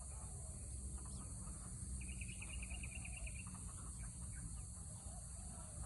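Birds chirping, with a short, rapid trill of about eight or nine notes a second lasting over a second, over a steady, high insect drone.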